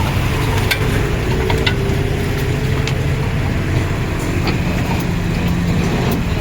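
A motor vehicle engine running steadily, with a few scattered clicks.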